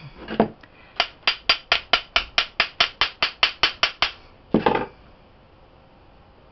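Round metal bath bomb mold being tapped: a quick, even run of about fourteen sharp metallic clicks at roughly four or five a second, with a heavier knock and scrape just before and just after the run.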